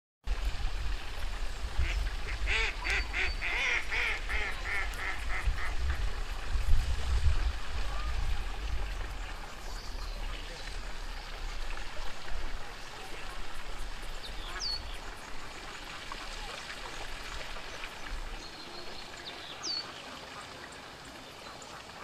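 A duck quacking in a quick string of quacks that trail off, about two seconds in, over a low rumble that dies away near the end. Two short high-pitched bird calls follow later on.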